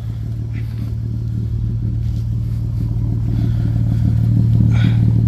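Lexus IS 250's V6 engine idling, a steady low hum that grows gradually louder, with a faint short click near the end.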